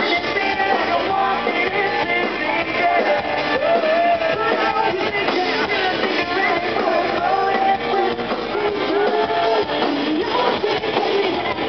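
Live rock band playing: a male lead singer singing into a microphone over strummed electric guitars, loud and steady throughout.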